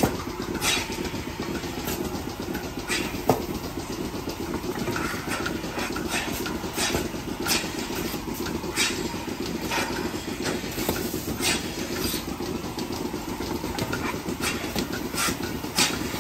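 An engine running steadily, with scattered clicks and knocks over it.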